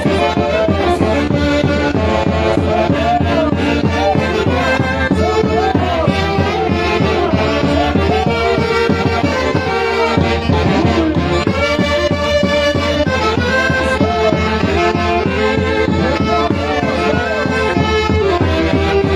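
A Peruvian folk orchestra playing live. Reed and brass wind instruments carry a wavering melody over a steady low bass, at a constant loud level.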